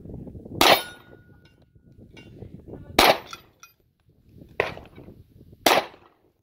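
Four handgun shots fired one at a time at an uneven pace, each a sharp crack with a short tail.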